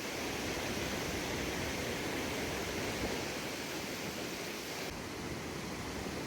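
Steady rushing of water falling at Iguazu Falls, an even, noisy wash with no distinct events. About five seconds in the high hiss drops away and the sound becomes duller.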